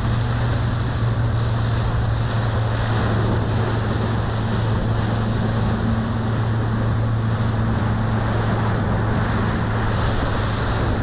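A small motorboat running steadily under way, its engine a low, even hum, with wind buffeting the microphone and water rushing along the hull.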